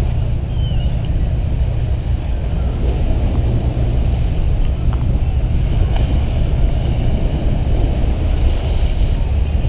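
Wind buffeting the microphone over a steady low rumble, with a few faint high chirps about half a second in.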